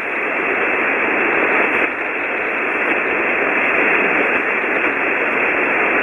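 Shortwave amateur radio receiver on 40-metre single sideband playing steady band noise: an even hiss, narrowed to the voice range, with no station audible through it.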